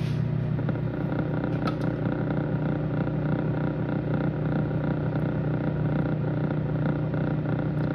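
Microwave oven running with a steady hum, with one or two faint clicks from late popcorn kernels popping in an open bowl.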